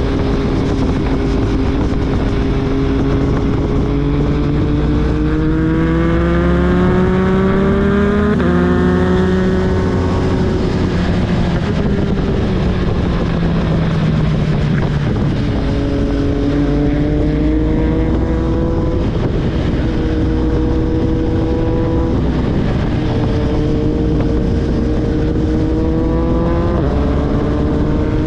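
Motor vehicle engine running hard and revving. Its pitch climbs, drops sharply at a gear change about eight seconds in, then falls away and climbs again as the vehicle speeds up.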